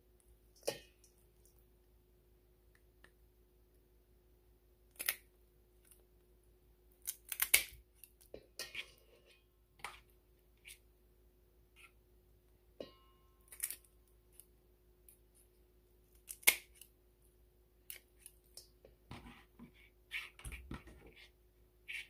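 Kitchen shears clicking and snipping, with light clinks against a stainless steel mixing bowl: about fifteen short, sharp sounds at irregular intervals over a faint steady hum.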